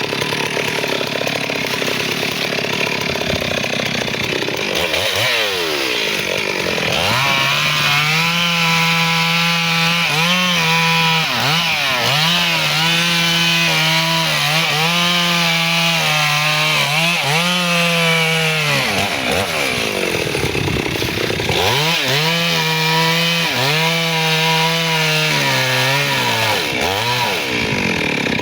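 Two-stroke chainsaw cutting teak: it runs at low revs, then is held at full throttle in two long spells, starting about 7 and 22 seconds in. Its pitch dips briefly every second or two as the chain bites, and it drops back to low revs between the spells and near the end.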